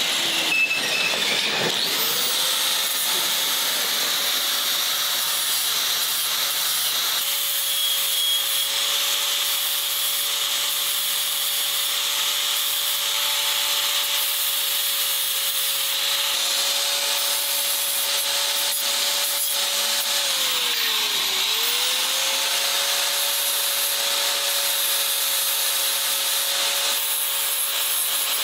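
Electric angle grinder running continuously with an abrasive disc held against stainless steel trim, grinding down a weld. The motor whine sags in pitch briefly about two-thirds of the way through, then comes back up.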